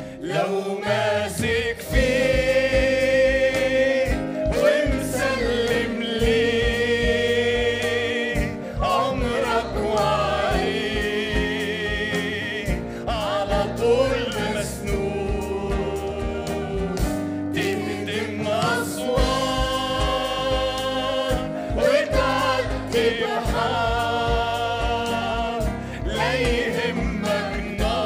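Church worship team of mixed men's and women's voices singing a gospel worship song into microphones, holding long notes, backed by instruments with a steady beat.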